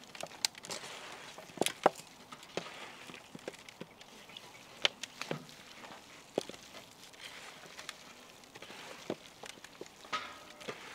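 Crisp fried onions being scattered onto marinated chicken pieces in a large steel pan, giving faint irregular crackles with a few sharper clicks.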